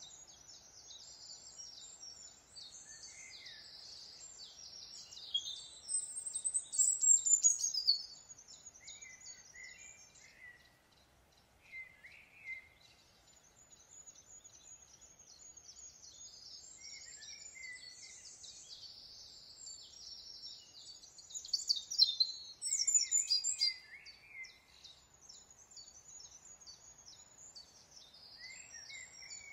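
Small birds chirping and singing, rapid high-pitched notes with some lower warbled calls, louder in two spells, about five to eight seconds in and again around twenty-two seconds.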